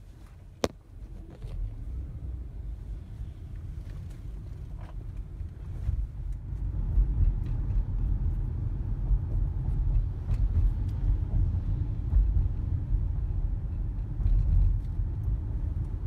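A car's low rumble as it gets moving and drives on, heard from inside the cabin, growing louder about six seconds in. A single sharp click comes just after the start.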